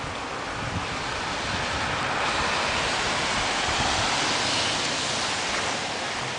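Heavy rain pouring down in a steady hiss, growing heavier about two seconds in.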